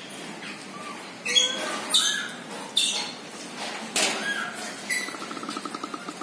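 Gray langur giving short, high-pitched squeaks and squeals, several in the first four seconds, followed by a fast buzzing trill near the end.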